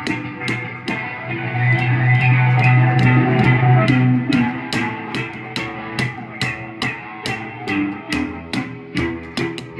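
Rock music led by guitars over a bass line, with a steady beat of about two hits a second. It swells louder on a long held bass note from about one and a half to four seconds in.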